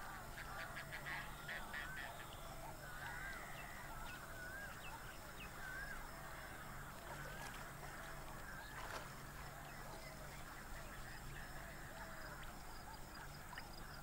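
Faint chorus of waterbirds calling from a marsh colony: many short, wavering squawks and croaks overlapping one another, with a few quick clicks in the first couple of seconds.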